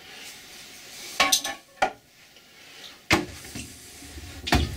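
Sharp metallic clinks and knocks, about five spread irregularly, from the carriage of a Colchester lathe being worked along the bed to try out newly fitted felt bed wipers. A low hum comes in about three seconds in.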